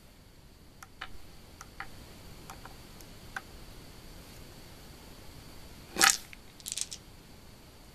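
A hand scooping small six-sided dice up off a wooden board, the dice knocking together in two short clatters about six seconds in and again just after. Before that there are a few faint light ticks.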